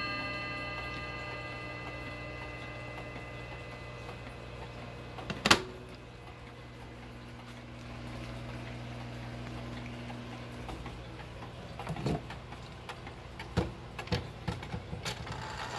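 The ringing of a mantel clock's chime dies away, and a sharp knock comes about five and a half seconds in. Near the end there is a series of small clicks and taps as the hands of an antique Seth Thomas clock are turned by hand.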